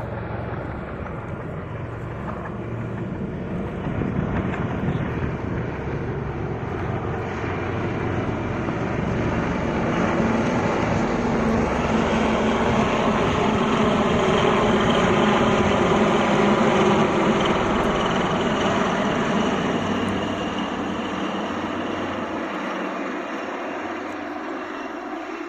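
HAL Dhruv helicopters of the Sarang display team flying past, the rotor and turbine noise growing louder to a peak a little past the middle, then fading away.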